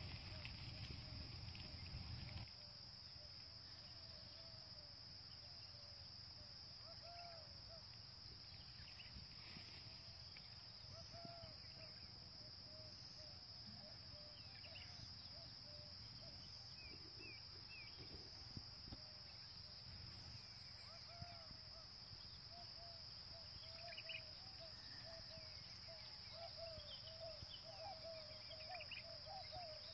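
Faint steady high-pitched insect drone, with small chirping calls scattered through it that grow more frequent near the end. A low rumble stops about two seconds in.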